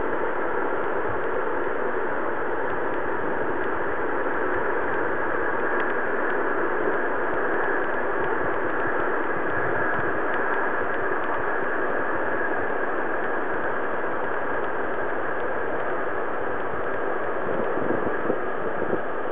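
A steady, even rushing noise, with a few faint low thumps near the end.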